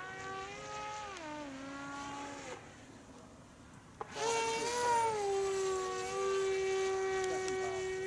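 Electric motor and propeller of a radio-controlled foam plane in flight, a whine that slides down in pitch, fades for a moment, then comes back louder after a click about four seconds in and holds a steady pitch. The plane is heavy and short of power.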